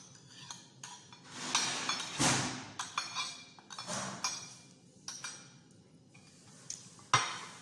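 Spoon and fork scraping and clinking against a plate while eating, in a few irregular bursts, with one sharp clink near the end.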